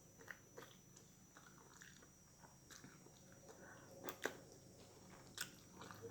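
Faint mouth sounds of someone eating a barbecued turkey leg: chewing with scattered wet lip smacks and clicks, a few sharper smacks about four seconds in and again near the end.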